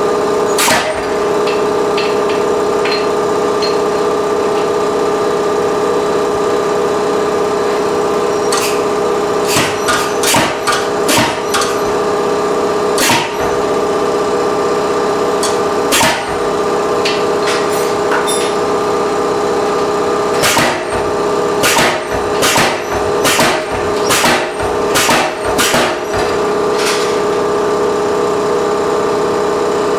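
Sharp metallic blows on hot steel as a slip hook is forged over the power hammer's die, single strikes at first and then quicker runs of blows later on. A steady machine hum runs underneath.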